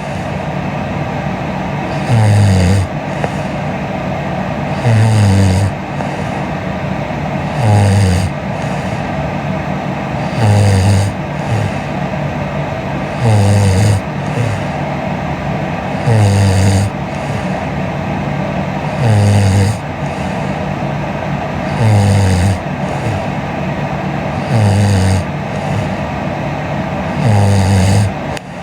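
A young woman snoring in her sleep: about ten short, evenly spaced snores, one every three seconds or so, over a steady background hiss.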